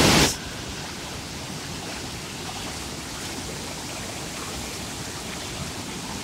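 Fast mountain torrent of white water rushing and crashing over boulders, a steady even roar. A brief loud burst of noise sits at the very start.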